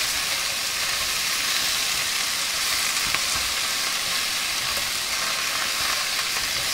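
Sawi greens stir-frying in a hot wok: a steady sizzle, with the occasional click and scrape of a spatula tossing the vegetables.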